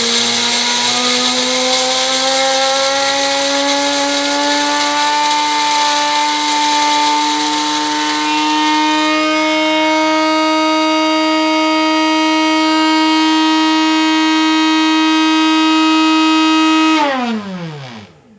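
Grinder motor of a vintage Mr. Coffee grind-and-brew coffee maker grinding coffee beans on its automatic cycle. A steady motor whine climbs slowly in pitch over the first half, holds, then switches off near the end and winds down.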